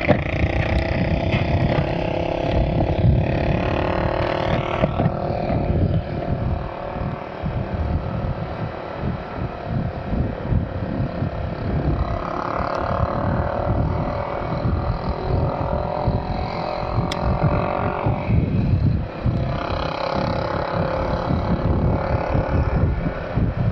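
Honda Click 125i scooter's single-cylinder engine running at a steady cruise while riding, with wind buffeting the microphone. Oncoming motorcycles pass about halfway through.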